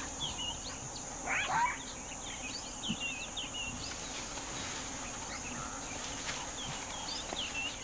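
Savanna wildlife ambience: a steady, high-pitched insect drone with many short bird chirps and whistles over it, and one louder rising call about a second and a half in.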